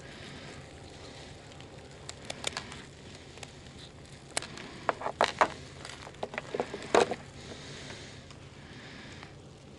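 Fishing tackle handled on a boat's fiberglass console: a run of irregular clicks and knocks, with the sharpest ones bunched together about two-thirds of the way through.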